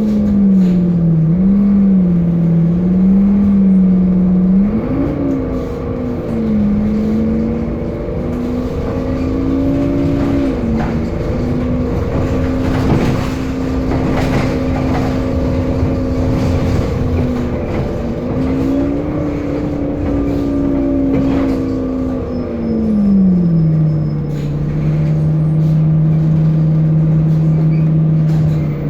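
Temsa Avenue LF city bus's DAF diesel engine and driveline running under way, its pitch wavering up and down. About two-thirds of the way through it falls smoothly to a lower, steady note.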